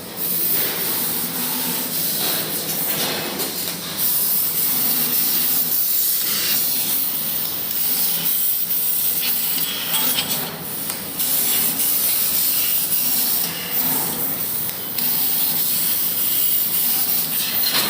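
CNC laser cutting machine cutting sheet metal: a loud, steady hiss of the cut and its assist gas that dips and swells briefly a few times.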